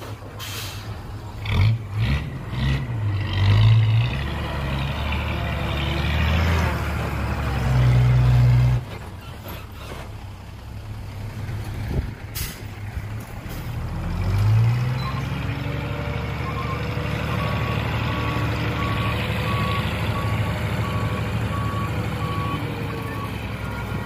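A dump truck's heavy diesel engine revving in surges under load, dropping back about nine seconds in. About twelve seconds in there is a brief sharp sound, then the engine picks up again and a reversing alarm beeps steadily, about one and a half beeps a second, as the truck backs up.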